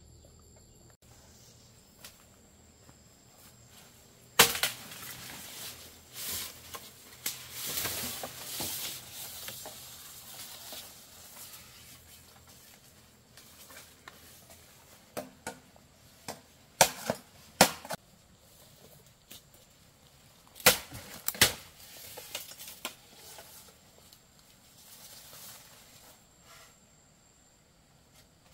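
Irregular sharp cracks and knocks with crunching in between: a loud crack about four seconds in, a few seconds of crunching, then two pairs of sharp cracks in the second half.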